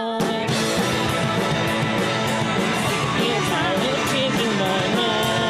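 Live rock band playing: guitar and drums together in a dense, loud mix that comes in full right at the start, with regular drum and cymbal hits.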